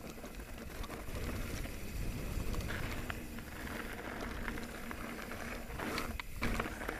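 Mountain bike rolling fast over a dry dirt and gravel trail: steady tyre rumble on the ground with scattered clicks and rattles from the bike over bumps, a burst of sharper rattles about six seconds in.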